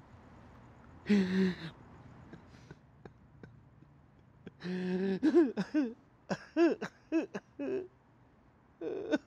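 A man's non-speech vocal sounds: a cough or groan about a second in, then a run of short groans that rise and fall in pitch for about three seconds, and another near the end.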